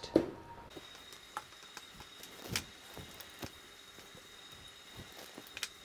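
A handful of light clicks and knocks from a goto motor and the metal telescope mount being handled as the motor is offered up to the right ascension axis, the sharpest just after the start.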